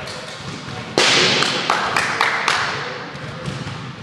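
A sharp, loud smack of a pitched plastic wiffle ball striking about a second in, ringing on with a long hall echo. Several smaller knocks follow over the next second and a half.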